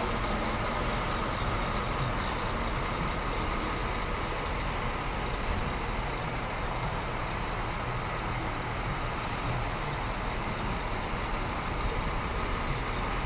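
Large diesel coach engine idling steadily, with a high hiss that drops away for a few seconds in the middle.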